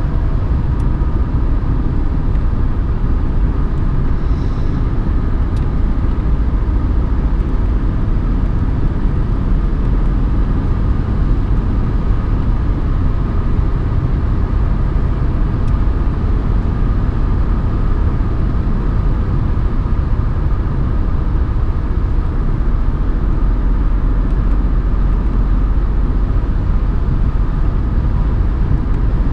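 Mercedes 190D's 2.5-litre OM602 five-cylinder turbodiesel running steadily while driving at an even speed, heard from inside the cabin together with the low rumble of tyres on the road.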